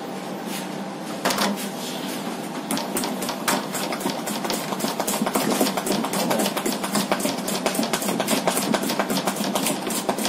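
Plastic spatula beating batter in a stainless-steel mixing bowl, a fast run of clicks and scrapes against the metal that starts a couple of seconds in and grows busier, after a single knock about a second in. A steady low hum runs underneath.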